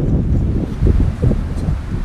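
Wind buffeting the microphone: a loud, low, uneven rumble that swells and dips.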